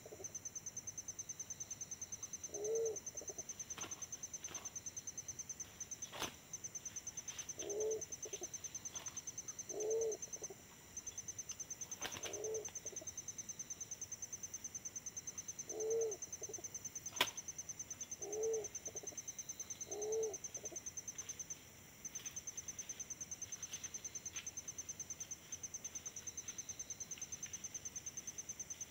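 Pigeons cooing: short, low coos, single or in quick pairs, every few seconds, over an insect's high, rapid, pulsing trill. Three sharp snaps, the loudest about two-thirds of the way through.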